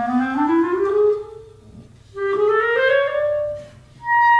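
A solo instrument playing two rising, sliding phrases, each lasting about a second and a half, then starting a high held note near the end.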